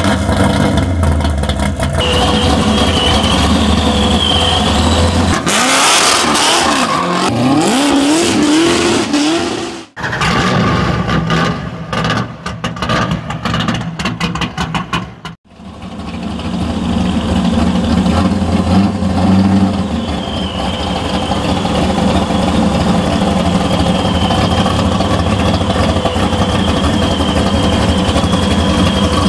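Supercharged 502 cubic-inch big-block V8 of a 1970 Corvette C3 running loud, revved in several rising and falling sweeps. About ten seconds in it cuts away to a few seconds of choppy, different sound, then the engine runs steadily again with a high whine over the exhaust.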